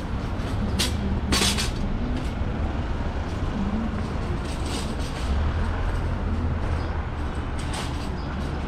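City street traffic: a steady low rumble of vehicles going by. A brief hiss comes a little over a second in, and a few short clicks are scattered through it.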